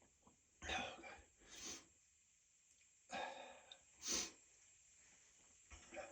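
A man breathing out heavily and sniffing, in pairs: a breath and a sharp sniff about a second in, another pair around three to four seconds in, and a fainter breath near the end.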